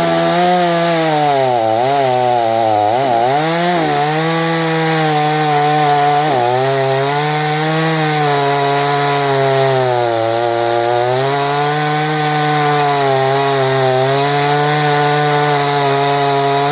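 Stihl MS 250 two-stroke chainsaw running at high revs while cutting through hornbeam wood. The engine pitch sags briefly a few times, around two, three and six seconds in, as the chain bites into the cut.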